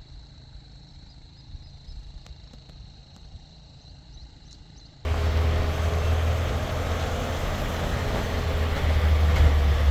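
A faint steady high whine with a few faint chirps, then, about halfway through, an abrupt switch to a loud, low rumble with a broad hiss that runs on.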